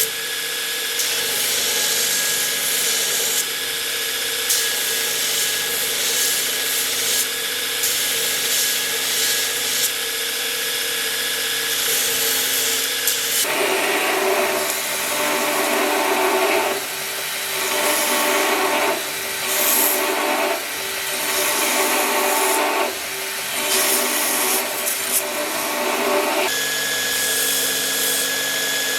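A power tool running steadily. About halfway through, its sound changes into a series of strokes roughly a second apart, as work is pressed against it repeatedly, then it settles back to the steady running sound near the end.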